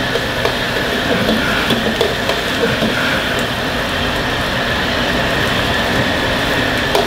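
Strong gas wok burner running with a steady, loud rushing noise while vegetables sizzle in the wok and a ladle stirs them.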